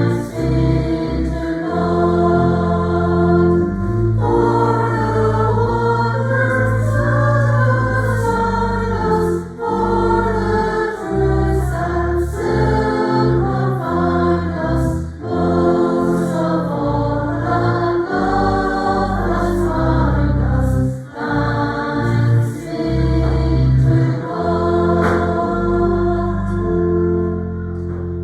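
Church choir singing a song of praise, with sustained low accompanying notes beneath the voices.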